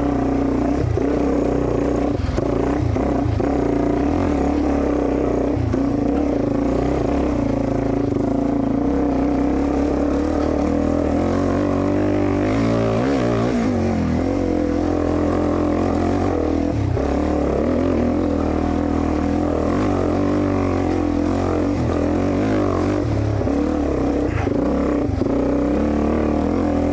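Dirt bike engine running as it is ridden along a trail, holding a fairly steady pitch with small rises and falls as the throttle is worked.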